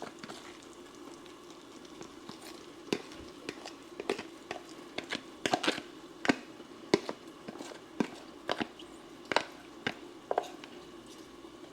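Cornbread batter going into a skillet of hot melted butter, crackling with irregular sharp pops about twice a second through the middle, over a faint steady hum.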